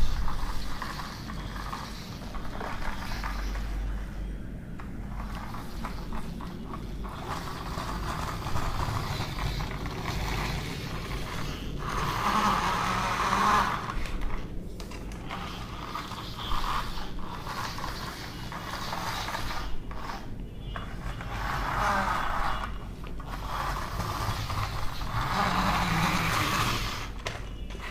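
Toy bus being run along a surface, its wheels and gear mechanism whirring in uneven spells that swell and fade.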